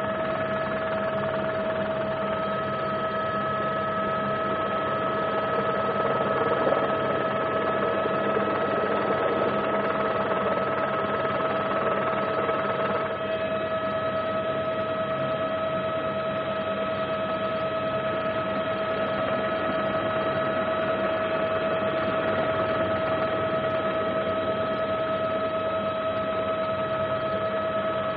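Steady aircraft engine drone with a constant high whine over a hiss, unchanging throughout.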